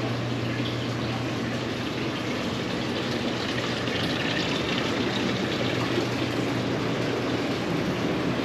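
Evaporative (swamp) cooler running: a steady rush of fan air and water trickling through the cooling pads, with a low steady hum underneath.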